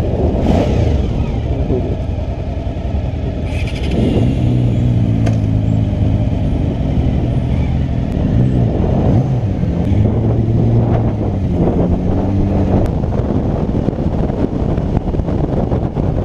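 Motorcycle engines running: a steady low rumble, and from about four seconds in an engine note that holds, dips and climbs again several times as a bike is ridden off.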